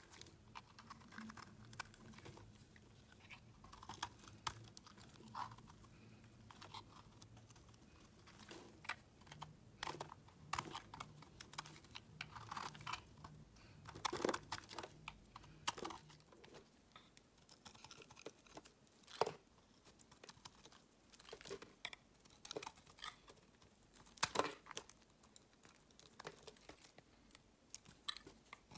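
A utility-knife blade carves chunks off a bar of dry, crumbly soap, making crisp scraping and crackling cuts at irregular intervals. Flakes crumble away with each stroke.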